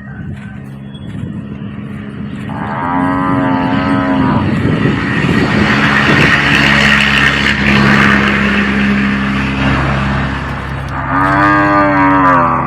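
Cattle mooing loudly: a drawn-out call about two and a half seconds in, loud rough lowing through the middle, and a second drawn-out call near the end, over a steady low hum.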